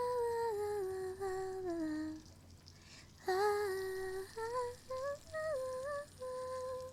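A woman humming a melody: a falling phrase of held notes, a pause of about a second, then a rising run of short notes ending on a long held note.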